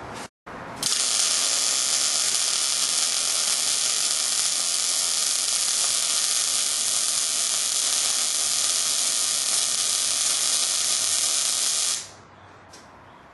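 Miller MIG welder's arc running steadily as a weld bead is laid by pushing the puddle, a continuous hiss that starts about a second in and cuts off abruptly near the end when the torch trigger is released.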